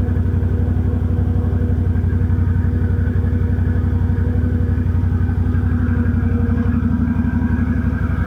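Can-Am Outlander ATV engine idling steadily, with an even, rapid firing beat. The machine has been overheating, its radiator packed with mud and steaming.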